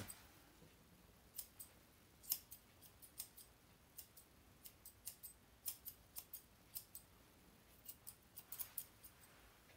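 Grooming shears snipping a Maltese's eyebrow hair: a string of faint, irregular snips, starting about a second in.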